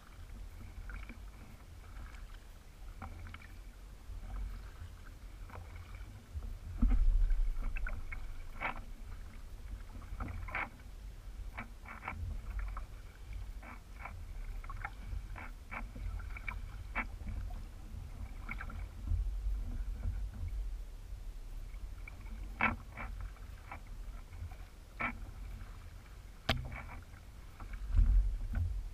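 Hobie Revolution 16 kayak being paddled with a double-bladed paddle: irregular small splashes, drips and light knocks of the paddle strokes over a steady low rumble, with two louder low thumps, about seven seconds in and near the end.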